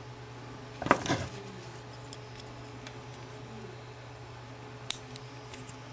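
Nail clippers snipping a tag end of a blood knot in monofilament leader: one sharp click just before five seconds in. A brief louder handling noise comes about a second in, over a low steady hum.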